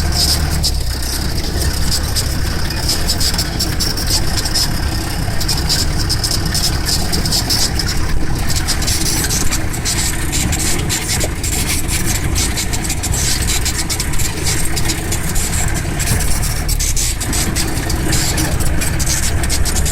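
Jeep engine running steadily under way, with many small knocks and rattles from the vehicle.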